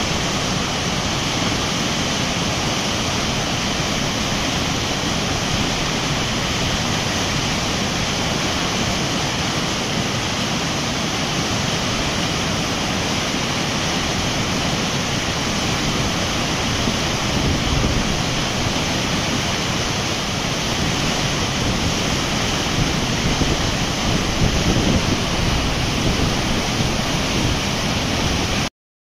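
Mountain river rapids: whitewater rushing steadily over boulders. The sound stops abruptly just before the end.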